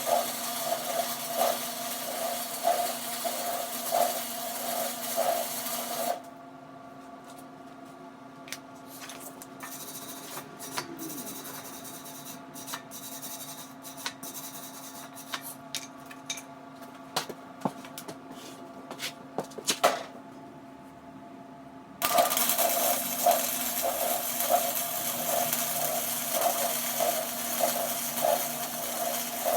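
Flux-core wire-feed welder laying two weld beads on a steel roof rack, a steady crackling sizzle. The first bead stops about six seconds in and the second starts about 22 seconds in. Between them there are scattered light clicks over a low hum.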